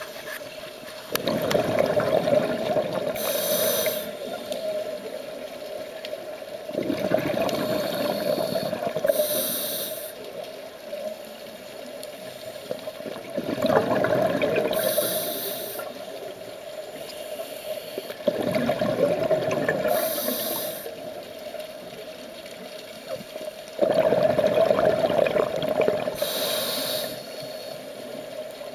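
Scuba regulator breathing underwater: about five slow breaths, one every five to six seconds. Each is a short, high hiss of air drawn through the regulator and a long rush of exhaled bubbles.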